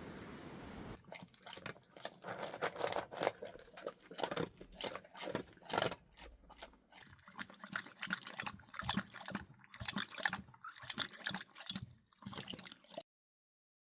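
A dog drinking, with a long run of quick, irregular wet laps that stops suddenly about a second before the end.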